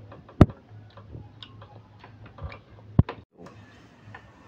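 Two sharp clicks about two and a half seconds apart, with lighter ticks between them, as a man eats with his hands from plates on a wooden table.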